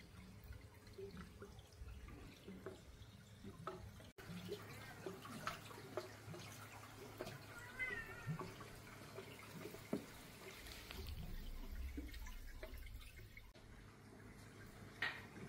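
Faint water sounds at a koi pond: scattered small drips and plops at the surface, with a brief warbling call about eight seconds in.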